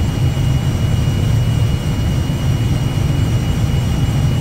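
Steady low rumble of airflow and jet engines inside an Airbus airliner's cockpit on final approach, with a faint steady high whine above it.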